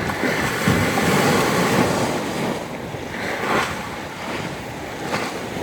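Rough sea waves surging and washing, with wind on the microphone; loudest in the first two seconds, then easing.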